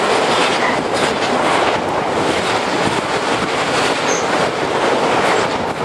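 Freight train of loaded steel-coil wagons passing close at speed: a steady rushing noise of wheels on rail, with rapid clicks as the wheels cross the rail joints.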